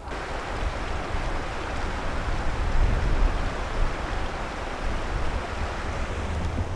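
Wind blowing across the microphone: a steady low rumble of buffeting with a hiss over it.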